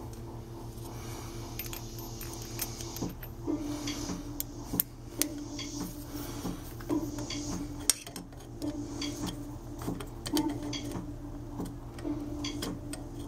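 A machine motor running steadily with irregular, sharp metallic clicks.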